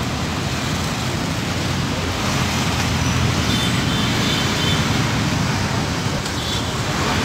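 Steady street din with a low traffic-like rumble and hiss, holding level throughout.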